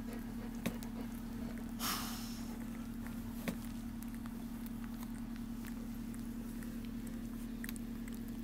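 Newborn bullmastiff puppies suckling at their mother, with scattered soft clicks and smacks over a steady low hum. A brief rustle comes about two seconds in.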